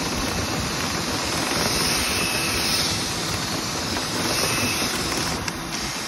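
Steady roar of air-moving vent cleaning equipment forcing air through a dryer vent duct, blowing lint out of the exterior vent opening. It eases slightly near the end, with a couple of light clicks.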